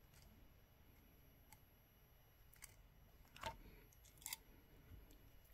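Near silence with a few faint clicks of jewelry pliers on a wire wrap, two of them a little louder in the second half.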